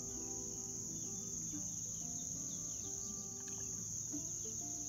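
Insects trilling in a continuous high-pitched drone that never breaks. Beneath it run fainter, lower steady tones that change in pitch every second or so.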